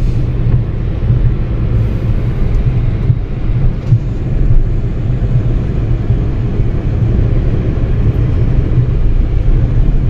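Steady low rumble of road and engine noise inside a moving car's cabin at highway speed.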